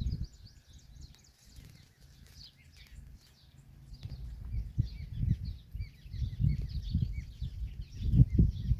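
Many small birds chirping at once in a busy, overlapping chorus of short high chirps, over low rumbling thumps that grow louder in the second half.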